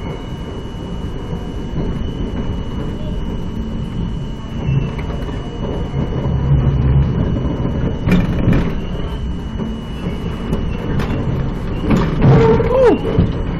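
R42 subway train running through a tunnel: a steady low rumble of wheels on rail with scattered clicks and knocks from the track. Near the end a short squeal glides down in pitch.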